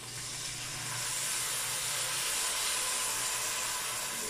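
First-press coconut milk poured through a ladle into a hot sauté pan, hissing steadily; the hiss swells about a second in.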